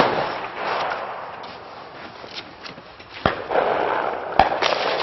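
Three sharp cracks: a very loud one at the start, then two more about three and four and a half seconds in. Rustling, shuffling noise runs between them.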